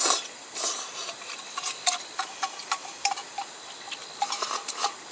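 A slurp of ramen noodles at the start, then a run of light clicks of chopsticks against a metal bowl, each with a slight ring.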